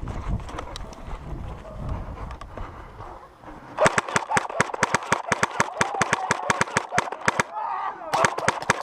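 Airsoft gun firing in rapid bursts, a fast even run of sharp clacks starting about four seconds in, breaking off briefly and resuming near the end.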